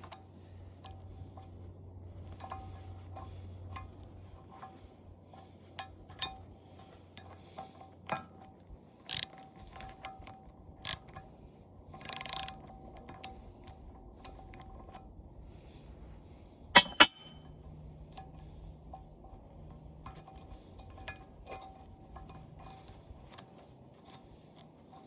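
Socket wrench ratchet clicking on and off as a stubborn nut is worked loose, with scattered sharp metal clicks and clinks, one much louder about two-thirds of the way in.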